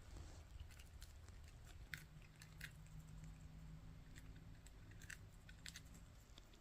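Faint, scattered small clicks and crunches of budgerigars biting and nibbling lettuce leaves with their beaks, over a faint low hum.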